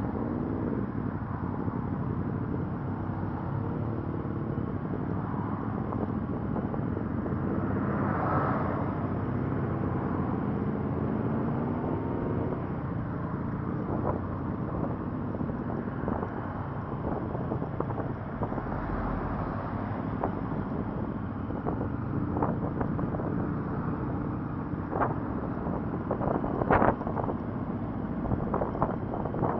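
Motorcycle engine running under the rider, its pitch rising and falling through the first dozen seconds as the bike pulls away and changes speed, with steady wind rush and tyre noise from the wet road. Several sharp ticks come in the last few seconds.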